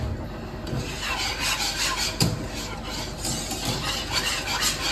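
Wire whisk stirring thick cream sauce in a non-stick frying pan: repeated scraping strokes, with a single knock about two seconds in.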